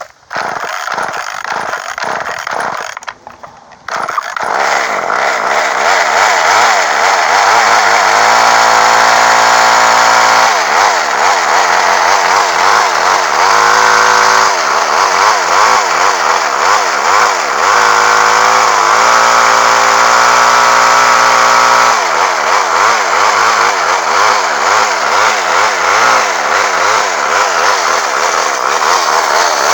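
Poulan Micro Pro Super XXV Deluxe chainsaw's two-stroke engine, cranked in a few short bursts, catching about four seconds in and then running on with its speed wavering up and down. It is being run while its idle speed is adjusted, because it will barely idle.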